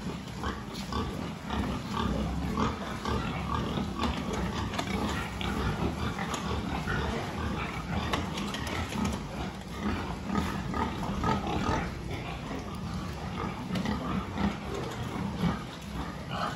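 Pigs in a barn grunting and calling in a continuous run of short sounds, with scattered knocks and clicks among them.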